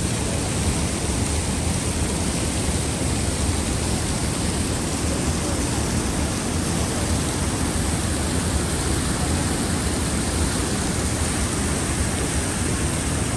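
Waterfall's steady rush of falling water, an even, unbroken noise.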